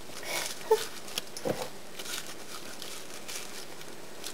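Gloved hands squeezing sticky caramel-coated popcorn into a ball: soft crinkling and rustling with a few light clicks.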